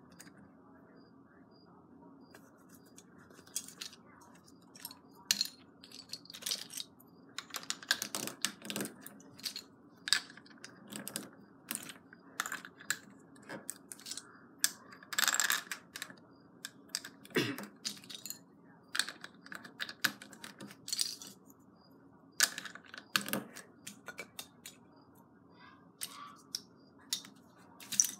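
Plastic LEGO bricks clicking and clattering as hands rummage through a loose pile and press bricks onto a baseplate: irregular sharp clicks, some louder clacks among them.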